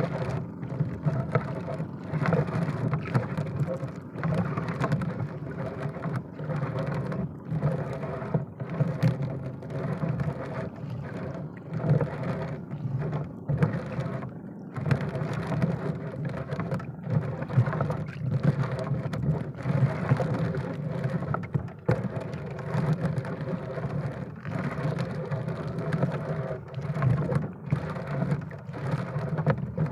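A boat engine running steadily, with rough, fluttering noise over it.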